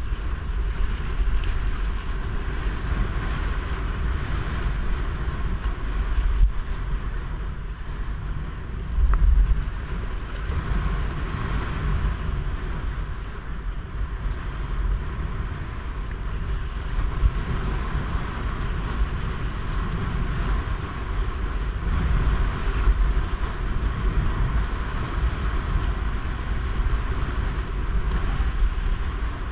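Windsurf board sailing through choppy water, water rushing and splashing under the board, with wind buffeting the microphone. A louder buffet of wind comes about nine seconds in.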